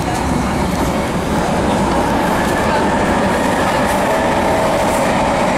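Vienna U-Bahn subway train running, heard from inside the car: a loud, steady rumble of wheels on rails with a faint whine. It grows a little louder in the first second and a half as the train pulls out of the station into the tunnel.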